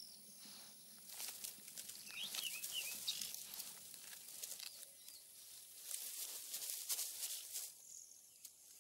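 Faint crunching and rustling from a honey badger chewing a small Schlegel's blind snake in short grass, coming in scattered clusters, with a few short high chirps about two to three seconds in.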